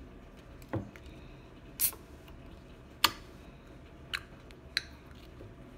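A few separate sharp clicks and snaps from a can of calamansi juice drink being handled and opened, the loudest a crisp snap about three seconds in.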